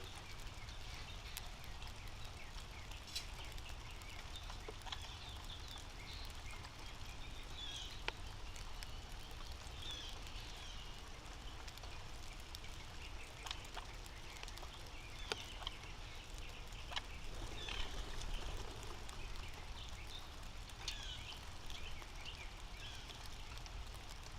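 Nanday conures (black-hooded parakeets) giving short, harsh calls on and off, with a few sharp clicks and a steady low outdoor rumble underneath.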